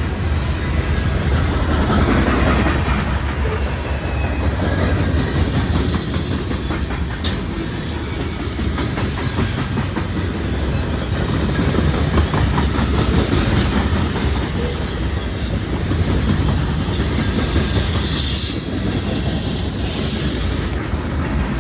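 Norfolk Southern freight train rolling past at close range: a steady heavy rumble with the clickety-clack of wheels over rail joints and a few sharp clicks.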